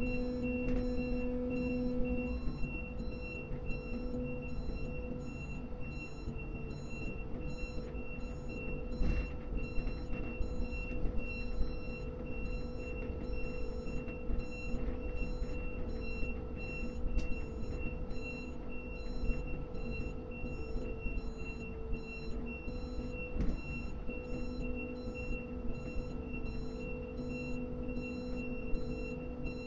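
Electric grab crane's drives running steadily: a constant electric hum and whine in several steady tones over a low rumble, with a few light knocks.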